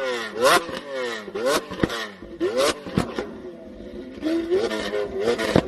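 A car engine being revved in quick blips, about once a second, each rev climbing fast and then falling away, with sharp cracks at the top of several. It settles lower for about a second midway before the revs pick up again.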